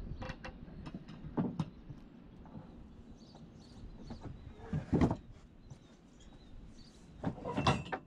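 Wooden boards being handled and shifted by hand: several knocks and scrapes, the loudest about five seconds in and a cluster of them near the end.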